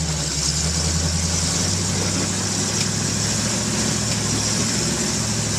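Rock crawler buggy's engine running steadily at low revs while the buggy crawls up a steep rock ledge, with a steady high hiss alongside.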